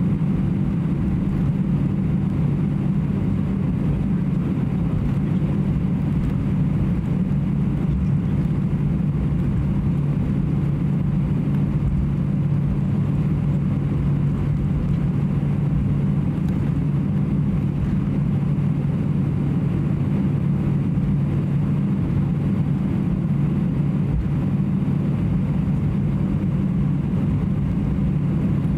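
Steady low hum and rush inside the passenger cabin of an Airbus A320-214, its CFM56 engines and air systems running at a constant setting.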